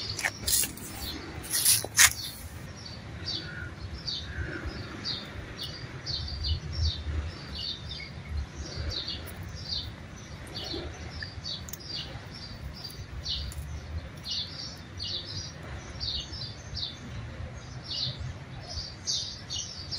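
Small birds chirping over and over, short high chirps two or three times a second. A few sharp clicks in the first two seconds, the loudest about two seconds in.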